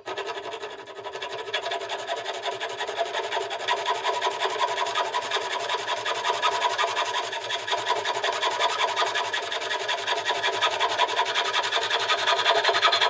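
Hand file rasping in quick continuous strokes across the end of a metal potentiometer shaft braced against a small bench vise, trimming it to the same length as the other shafts.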